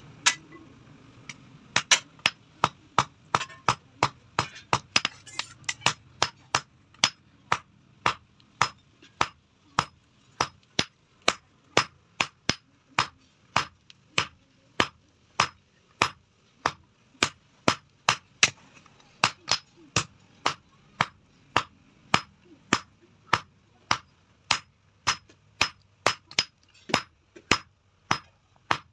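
Hand hammer forging a red-hot steel bar on an anvil: a steady run of sharp, ringing blows, about two a second.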